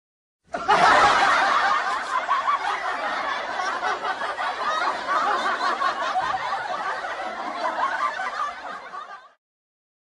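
Canned audience laughter: a crowd laughing together, starting about half a second in, loudest at first, then easing off and cutting off just after nine seconds.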